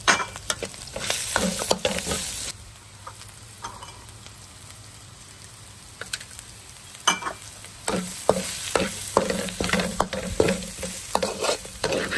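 Metal spatula scraping and stirring chili-and-lemongrass spice paste around a steel wok as it sizzles in the oil. There are bursts of scraping strokes in the first couple of seconds and again from about seven seconds in, with softer sizzling between.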